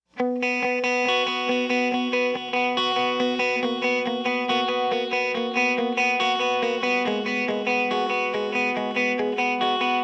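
Instrumental intro of a rock song: guitar picking a repeated pattern of notes several times a second, with no singing.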